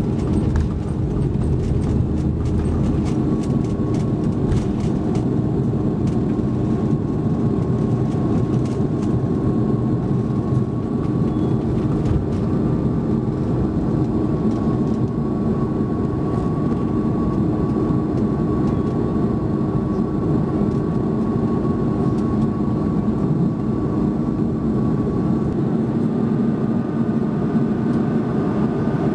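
Airbus A330-300 jet engines at takeoff power heard from the cabin over the wing. In the first few seconds there is rumbling and knocking from the wheels on the runway; after that comes a steady engine noise with a high fan whine through the climb.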